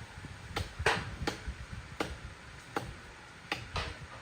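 A series of sharp knocks, about seven irregularly spaced strikes, like blows on wood, over a low rumble.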